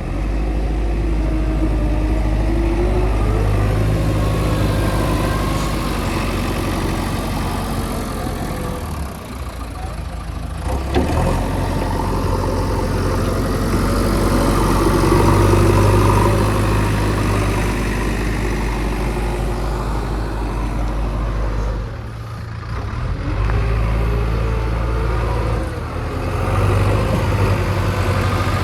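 Diesel engine of heavy earthmoving equipment running, a steady low drone that rises and falls in level as the machine works, with a sharp click about eleven seconds in.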